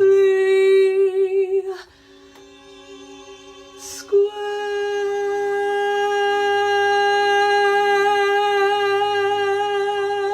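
Ending of a slow vocal ballad: a sung note with vibrato, a short quieter stretch of soft accompaniment, then one long final note held for about seven seconds over the backing.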